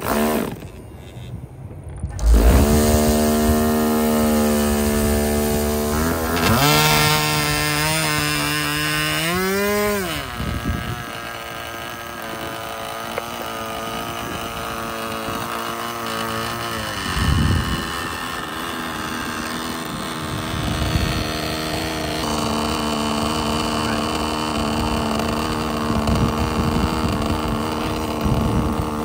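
OS Engines 15LA two-stroke glow engine on a model airplane, spun over by an electric starter on the spinner. It catches about two seconds in and runs with a buzzing note. Around eight to ten seconds in its pitch climbs sharply, then it drops to a steady, lower running speed as it warms up.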